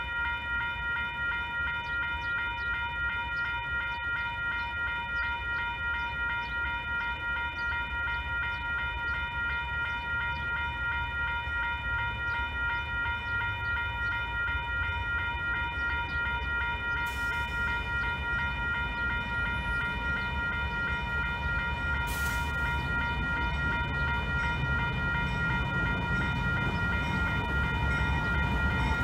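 Railroad grade-crossing bell ringing in a quick, steady repeating pattern. Under it, the low rumble of an approaching diesel freight train grows louder toward the end.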